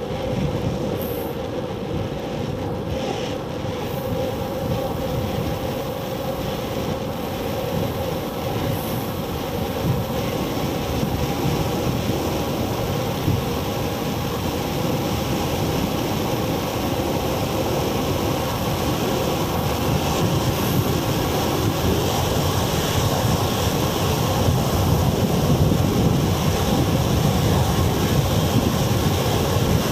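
Wind rushing over a handlebar-mounted camera's microphone, with the rumble of bicycle tyres on asphalt, growing louder as the bike coasts faster downhill.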